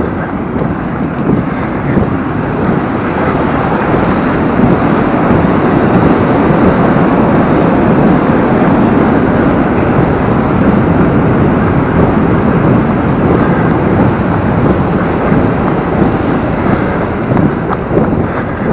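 Wind rushing over an action camera's microphone while moving, a loud steady noise that swells a few seconds in and eases near the end.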